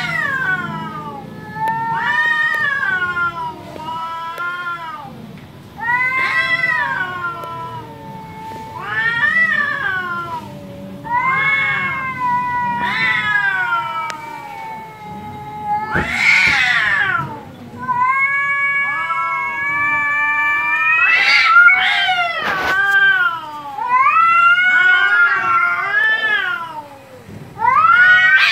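Two domestic cats yowling at each other in a standoff: long, wavering calls that rise and fall, traded back and forth, with a harsh noisy outburst about halfway through.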